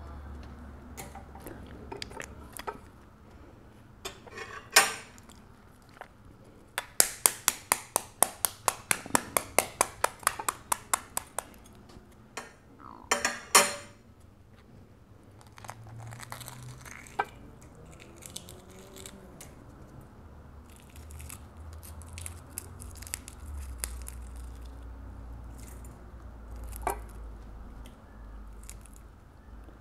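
Shell of a balut duck egg being tapped and peeled by hand: a quick, even run of light taps, about four or five a second, for several seconds, then a couple of sharper cracks and softer crackling of shell bits.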